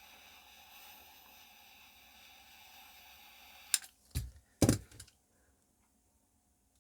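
Faint steady hiss, then a sharp click and two louder knocks about half a second apart, as small tools and parts are handled on a workbench while gluing a clock mechanism.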